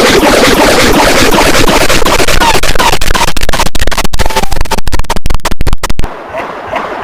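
Loud, harsh, heavily distorted audio from a 'G major'-style effects edit. About three seconds in it starts stuttering, with rapid sudden cut-outs, then drops quieter near the end.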